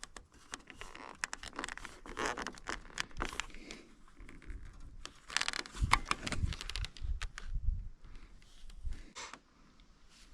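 Plastic snowmobile snowflap being handled and pushed into place against the sled's rear tunnel: scraping, rustling and many small clicks, with a few dull knocks about the middle.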